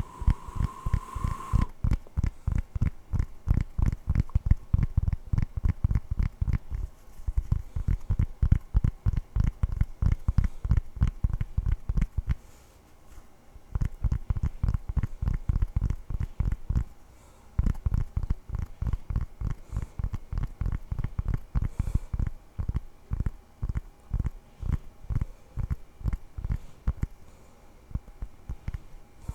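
Hands making rapid, soft, deep thumps close to the microphone, about four a second, with two short pauses. A steady ringing tone sounds for the first couple of seconds.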